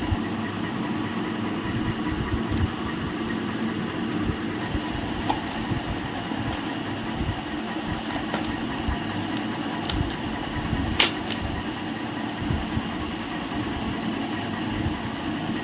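Steady mechanical hum and noise throughout, with a few light clicks and one sharp click about eleven seconds in, as a wireless-microphone kit's packaging is opened and handled.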